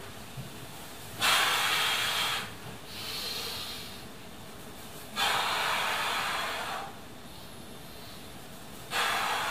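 A man breathing hard through his mouth and nose, paced to the reps of a slow bodyweight squat. There are three loud breaths about four seconds apart, and the first is followed by a softer one.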